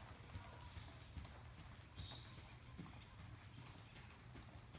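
Faint hoofbeats of a horse moving under a rider on the sand footing of an arena.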